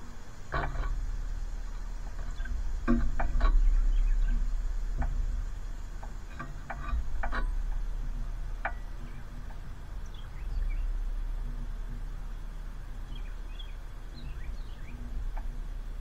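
Backyard ambience under a steady low rumble. Scattered sharp clicks and taps fall in the first half, and faint high chirps of small birds come in the second half.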